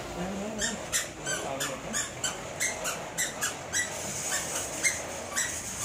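Shopping trolley squeaking and clicking as it is pushed, a few short squeaks a second.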